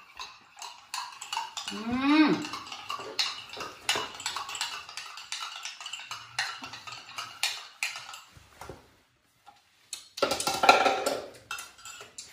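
Teaspoon stirring in a ceramic mug, many light clinks and taps of metal on the cup. About two seconds in there is a short call that rises and falls in pitch.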